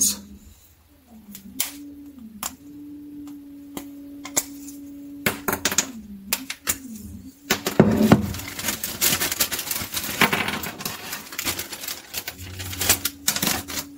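Plastic parts being handled: a run of small clicks, knocks and rustling, busiest in the second half. Before that, a steady low tone that dips in pitch a few times.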